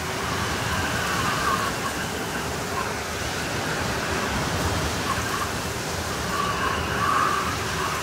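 Blizzard wind: a steady rushing noise with a whistling tone that swells and fades a few times.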